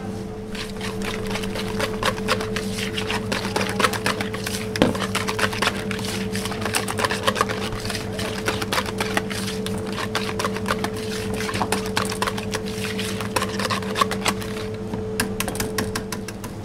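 Wire balloon whisk beating a thick cream in a large bowl: rapid, uneven clicks and scrapes of the wires against the bowl's sides. A steady low hum sounds underneath.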